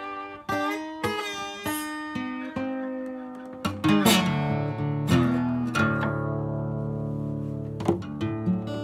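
Solo acoustic guitar played with the fingers: separately picked notes at first, then louder chords from about halfway, one left ringing for a couple of seconds before the next is struck near the end.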